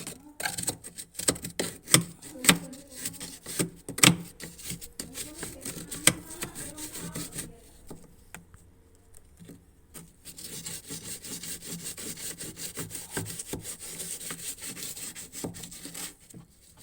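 An old toothbrush scrubbing the dirty drain parts of a washing machine with detergent: a run of sharp scratchy strokes and knocks, a pause of about two seconds, then steady fast scrubbing.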